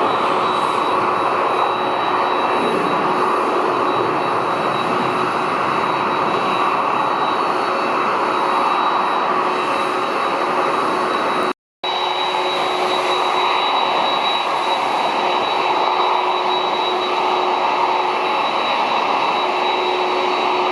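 Boeing 767-300ER jet engines running at a steady level as the airliner taxis, a steady whine over a broad rush. The sound cuts out for a moment about halfway through.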